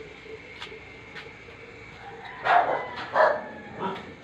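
A dog barking: three short barks about two-thirds of a second apart, starting a little past halfway.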